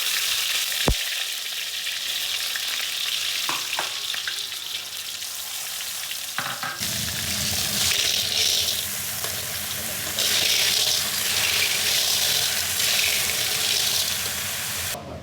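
Sea snails and seasonings stir-frying in hot oil, sizzling steadily while being stirred in the pan. There is a sharp click about a second in, and the sizzle grows fuller at about seven seconds, then swells and eases several times.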